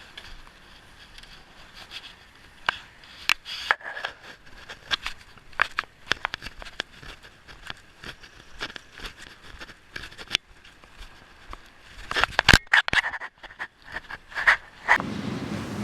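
Irregular clicks and scraping, scattered at first and then a dense, louder cluster of clicks about twelve seconds in.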